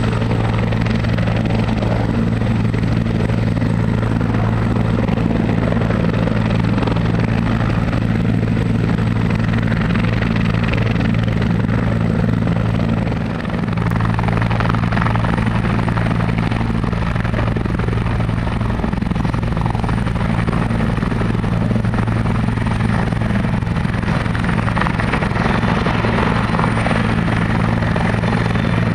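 Bell 412 four-bladed turbine helicopter running with its rotor turning, a steady low rotor hum under a high turbine whine. About halfway through, the whine rises in pitch as power comes up, and the helicopter lifts off into a hover.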